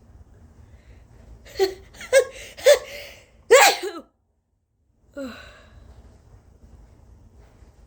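A woman's forced sneeze: three sharp, high-pitched gasping catches of breath build up, then a loud sneeze bursts out about three and a half seconds in, followed a second later by a short falling vocal sound. The sneeze comes from a nose irritated by allergies.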